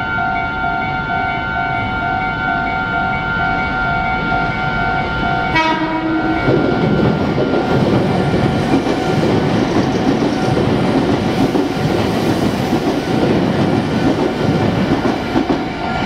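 Japanese level-crossing warning bell ringing in a fast, steady repeating pattern. About five and a half seconds in, a red Meitetsu electric train sounds a short horn blast, then runs through the crossing with a loud rumble and wheel clatter while the bell keeps ringing.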